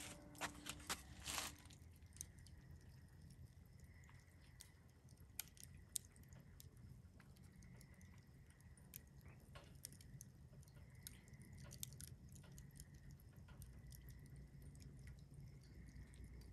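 Faint crackling of a wood fire in a Solo Stove Bonfire fire pit: scattered sharp pops, a cluster of them in the first second and a half and another about six seconds in, over a low steady rumble of the flames.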